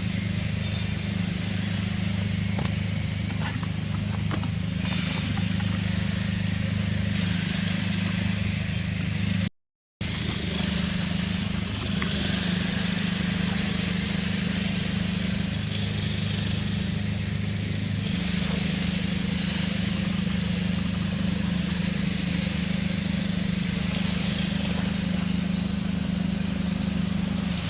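A steady low motor hum holding one pitch, with a constant hiss of outdoor background noise over it. The sound drops out completely for about half a second near the ten-second mark, then resumes unchanged.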